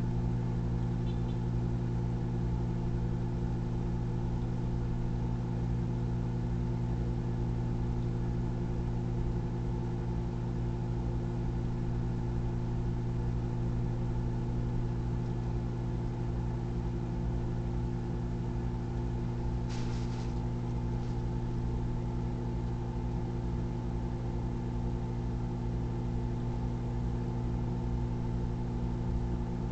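Microwave oven running on high: a steady electrical hum with a strong low buzz. A brief cluster of clicks comes about two-thirds of the way through.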